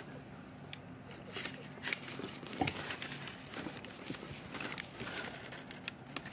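Crinkling and rustling of crumpled brown paper bedding in a cardboard box as a pet rat shifts about and is handled, with scattered sharp clicks and scrapes, the loudest about two seconds in.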